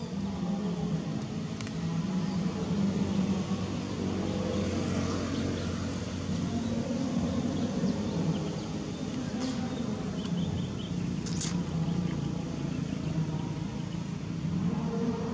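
A motor vehicle engine running steadily: a low, even rumble, with a few faint sharp clicks.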